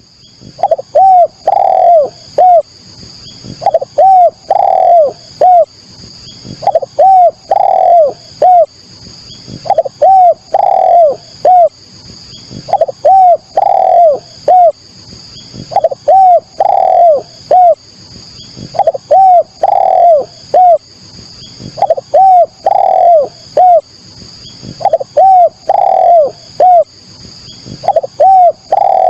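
Spotted dove (derkuku) cooing: a loud phrase of about four short coos repeated about every three seconds, ten times over, over a steady faint high-pitched hiss.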